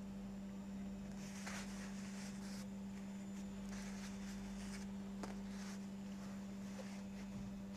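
Soft rustling of fabric being handled, in two short spells, with a single sharp click about five seconds in, over a steady low hum.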